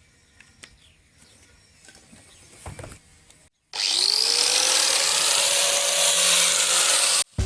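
Electric drill starting about halfway in, its pitch rising as it spins up and then running steadily with a loud hiss, before stopping abruptly about three and a half seconds later. Faint clicks and taps come before it.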